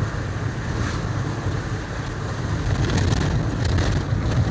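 Car driving on a rough dirt road, heard from inside the cabin: a steady low rumble of engine and tyres, with a few faint knocks.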